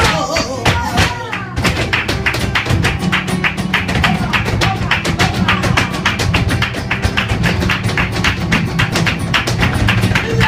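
Flamenco music with rapid, dense footwork taps of flamenco shoes on a floor (zapateado), starting about a second and a half in and running on over a steady low musical accompaniment.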